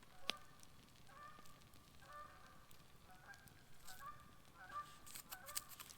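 Geese honking: a flock's faint, repeated short calls, one after another, with a single sharp click about a quarter second in.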